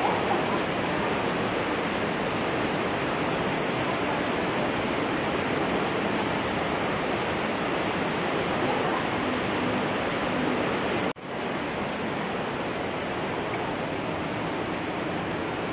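Steady, loud rush of a waterfall. About eleven seconds in it drops out for an instant, then carries on slightly quieter.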